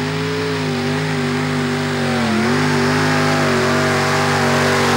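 Six supercharged Chevrolet V8 engines of a modified tractor-pulling tractor running flat out as it drags the brake sled. A steady, many-toned engine drone that dips briefly in pitch about two seconds in and slowly grows louder.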